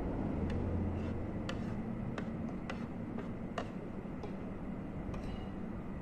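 Scattered light clicks and taps, about eight at irregular intervals, over a steady low rumble.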